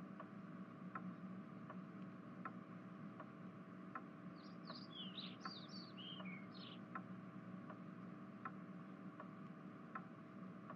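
Faint room ambience: a clock ticking steadily, a little more than once a second, over a low steady hum, with a short run of birds chirping from about four to seven seconds in.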